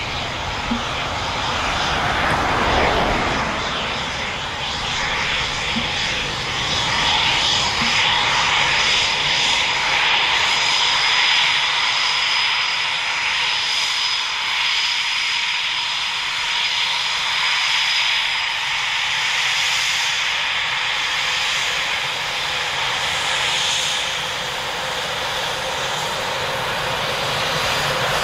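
Twin Eurojet EJ200 turbofans of a two-seat Eurofighter Typhoon running at low taxiing power: a steady, high-pitched jet whine over a rushing hiss, swelling a little now and then.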